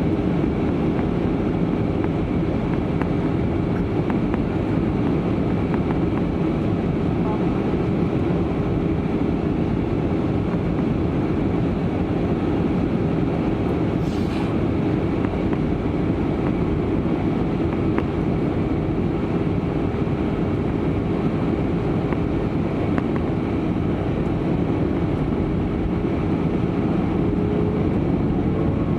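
Jet airliner cabin noise in flight: a steady, unbroken roar of airflow and engines with a constant hum underneath.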